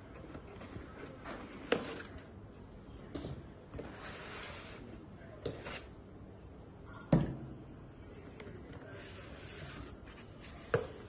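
Handling noises: a few sharp clicks and knocks, the loudest about seven seconds in, with a short hiss around four to five seconds in.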